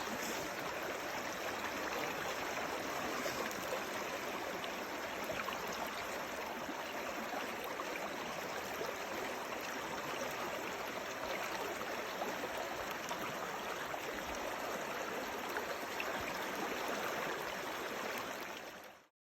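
River water rushing and gurgling over its bed: a steady, even flowing-water noise that cuts off suddenly near the end.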